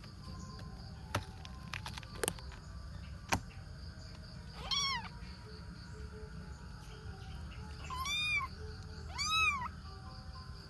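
Young kitten meowing three times: short, high mews that rise and fall in pitch, the last two about a second apart. A few sharp clicks come before them in the first few seconds.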